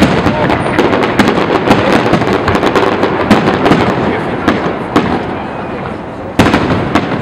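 Fireworks display: a rapid, continuous barrage of bangs and crackles, easing slightly before one louder bang near the end.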